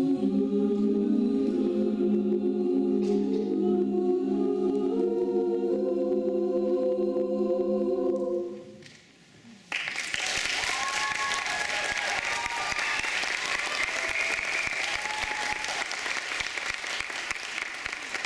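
Mixed-voice a cappella choir holding a closing chord with sustained notes, which fades out about eight and a half seconds in. After a second of quiet, the audience breaks into applause with some voices calling out.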